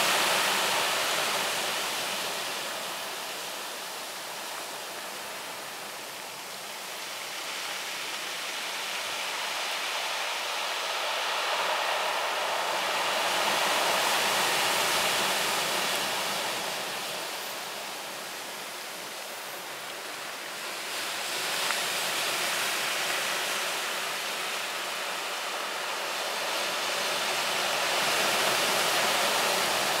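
Heavy surf stirred up by an approaching typhoon, breaking and washing up a beach. It is a steady roar of water noise that swells each time a wave crashes, loudest near the start, about halfway through and near the end.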